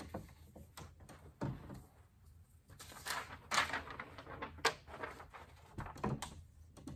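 Quiet handling sounds at a whiteboard: an eraser wiping the board, then scattered small knocks and clicks as the eraser and marker are set on the tray, with swishes of a sheet of paper being handled.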